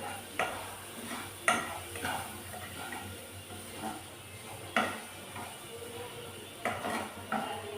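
Spatula clinking and scraping against a frying pan as garlic is stir-fried, about half a dozen sharp clinks, over a faint sizzle.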